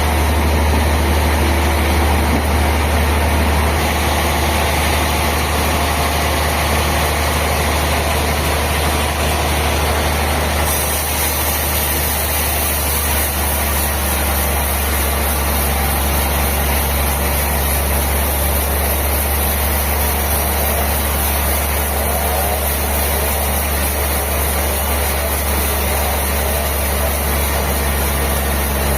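Sawmill machinery running steadily: a deep, constant engine-like drone under an even hiss, with slight shifts in tone about 4 and 11 seconds in.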